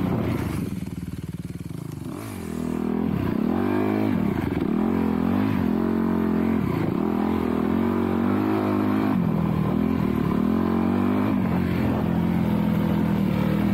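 Dirt bike engine revving up and down in repeated swells as the throttle is worked, heard from the rider's position on the bike. It eases off about a second in and picks back up near the three-second mark.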